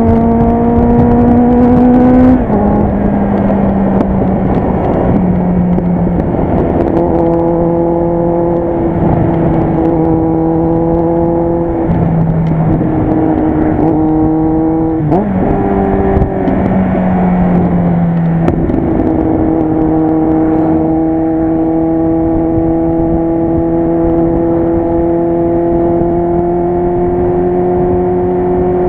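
Kawasaki Z800 inline-four with an aftermarket Jeskap exhaust, running under way. The engine note climbs for the first two seconds, then drops with a gear change. It holds fairly steady through cruising, with a few small pitch steps and a short rev blip around the middle, over a constant rush of wind.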